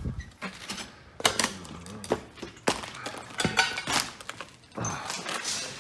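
Someone clambering over debris on a derelict building's floor: irregular knocks, crunches and clatters, with a few sharp impacts spread through.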